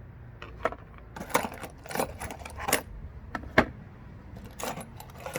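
Small metal drill bits clinking against each other as they are handled and sorted: about a dozen sharp, irregular clinks, with no drill motor running.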